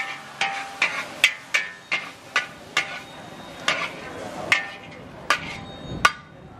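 Metal wok spatula striking and scraping a large black wok while stir-frying char kway teow noodles: sharp clanks with a brief metallic ring, about two a second, with a short pause partway and fewer strikes near the end.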